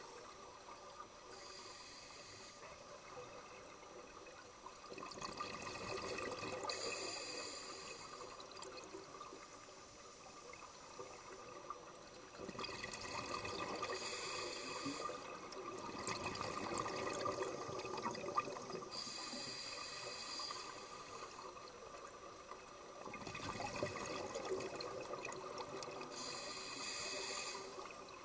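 Scuba diver breathing through a regulator underwater, heard through the camera's housing: a hissing inhale and a rush of exhaled bubbles, repeating about every six seconds.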